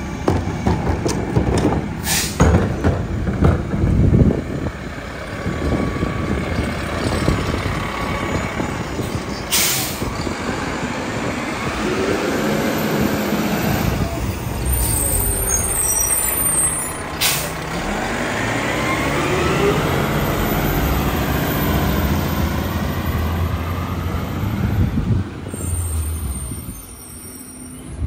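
Mack LEU garbage truck with a Leach rear-loader body: engine running and revving up through the gears as it pulls away, with three sharp air-brake hisses about two, ten and seventeen seconds in. The sound drops off as the truck moves away near the end.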